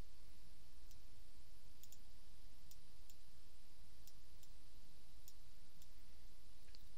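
Computer mouse clicking about a dozen times at uneven intervals, light sharp clicks over a steady low hum and hiss.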